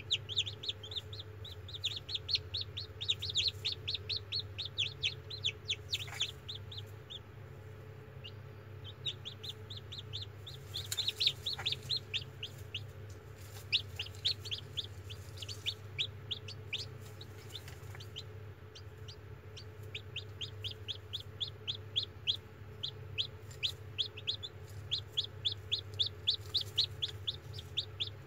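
Newly hatched chicks peeping: long runs of quick, short falling peeps, several a second, thinning out twice before picking up again. A steady low hum runs underneath.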